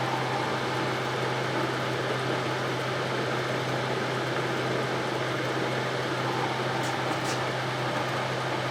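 Cylindrical grinder workhead motor running steadily, spinning the collet chuck while its runout is checked: an even, unchanging hum.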